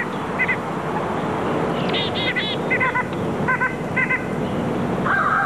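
Birds calling: short, arched calls repeated in quick groups of two or three, over a steady hiss. A steady held tone comes in near the end.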